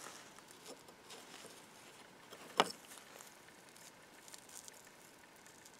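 Faint handling of a rusty steel cover plate on an antique brass ice box latch being lifted off the case by gloved hands: small scattered metal clicks and rustles, with one sharp metallic click about two and a half seconds in.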